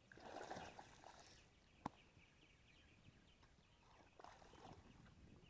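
Faint splashing of a hooked largemouth bass thrashing at the surface, at the start and again about four seconds in, with a single sharp click about two seconds in.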